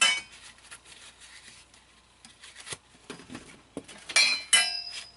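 Packaging and parts being handled: crinkling and rustling in short bursts, loudest at the very start and twice near the end, with scattered light clicks and knocks in between.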